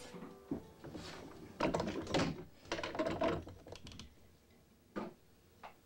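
Wooden clatter of pear-wood ink-stick moulds being handled and clamped in a screw press: quick runs of clicks and knocks through the middle, then two single knocks near the end.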